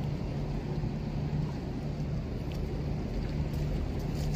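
Low steady rumble of a large container ship's diesel engine as it passes close by, with a low hum that comes and goes.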